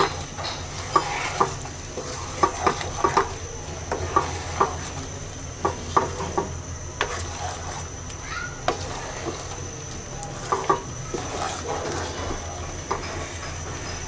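A spatula stirring and scraping in a cooking pot with irregular knocks against the pot, over a light sizzle, as lentils and fish are stir-fried in spiced oil.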